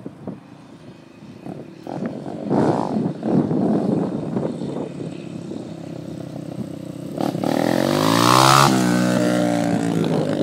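Dirt bike engine revving as the bike accelerates up the street. Its note climbs as it comes close, is loudest a little past eight seconds in, then drops sharply in pitch as the bike passes by.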